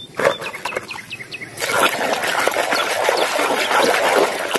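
Hands swishing and scrubbing a plastic toy in a tub of muddy, soapy water, with a steady splashing that starts about a second and a half in. Birds chirp faintly before the splashing begins.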